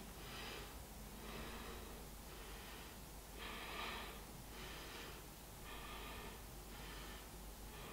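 A woman breathing softly in and out, several slow breaths, while holding a one-legged yoga balance pose; the loudest breath comes about three and a half seconds in.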